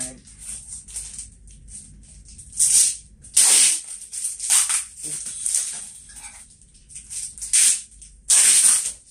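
Box cutter slitting packing tape and plastic wrapping on a parcel, with short bursts of crinkling and ripping every second or so. The loudest tears come just after three seconds and near the end.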